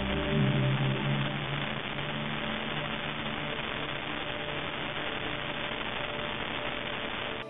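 Muffled underwater ambience: a steady dull hiss with a low droning hum beneath it, the hum strongest in the first second, stopping abruptly near the end.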